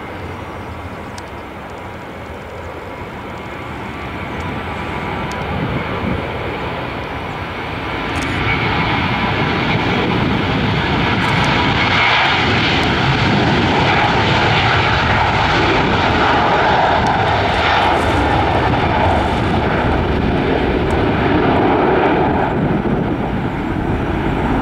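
Boeing 737-800's twin CFM56-7B turbofan engines at takeoff power during the takeoff roll. The sound grows louder, swelling sharply about eight seconds in, then holds as a steady, loud jet roar with a whining tone in it.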